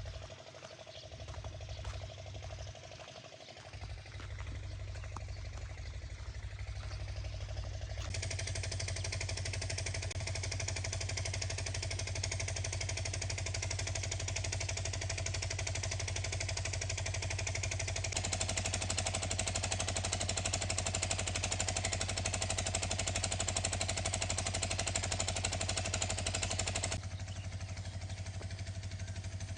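A vehicle engine running steadily while driving, with a fast even pulsing. Road and wind hiss rise sharply about eight seconds in, rise again a little later, and ease off near the end.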